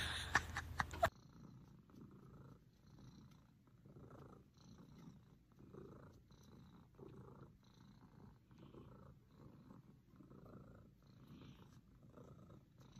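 A long-haired orange cat purring quietly while being stroked, in soft even swells about two a second. A few brief clicks sound in the first second.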